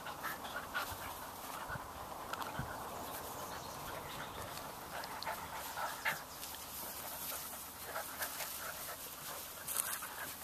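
Eight-week-old Chinook puppies play-fighting, giving short, scattered dog noises as they wrestle, with one sharper sound about six seconds in.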